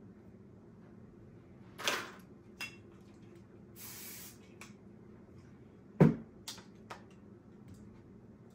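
Hair-styling tools being handled: several sharp clicks and knocks, the loudest about six seconds in. About four seconds in, a short hiss of a spray bottle misting the wig.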